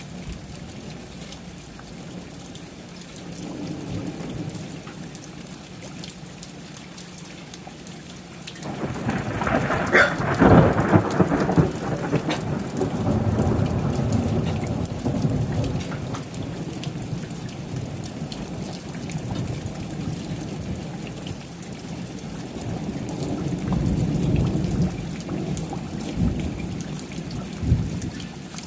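Steady rain falling, broken about a third of the way in by a sudden thunderclap: a sharp crack, then a low rumble that rolls on for several seconds. A second, weaker roll of thunder swells near the end.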